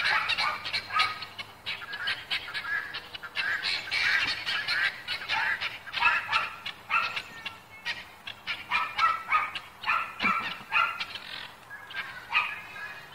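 Several guinea fowl calling from a rooftop: a rapid run of short, harsh calls repeated several times a second.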